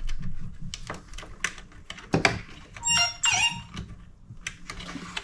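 Handling of a cordless blower's opened plastic housing and its wiring: a run of light clicks and knocks, with a brief high squeak that slides down in pitch about three seconds in.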